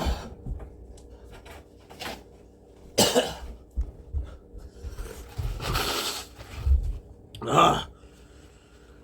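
A man coughing and breathing hard, his mouth and throat burning from capsaicin after eating habanero peppers quickly. The loudest coughs come about three seconds in and near the end, with a longer breathy blow in between.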